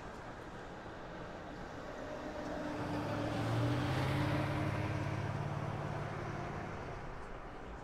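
A motor vehicle's engine drones past, growing louder for a few seconds in the middle and then fading, over steady busy street noise.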